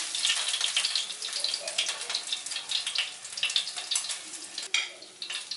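Oil sizzling and crackling steadily in a tawa where masala-coated seer fish (vanjaram) steaks are shallow-frying, with small spits and pops throughout; the sizzle drops away suddenly near the end.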